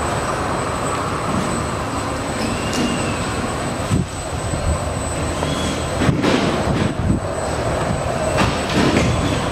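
Steady rumbling background noise of an aircraft hangar, with several knocks and clatters in the second half.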